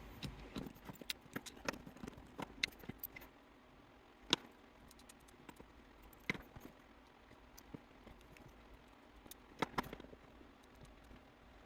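Scattered small metallic clicks and taps from a Goal P pin-tumbler lock being taken apart by hand, with its pins, springs and core handled. The clicks come irregularly, with the sharpest about 4 s in and two close together near 10 s.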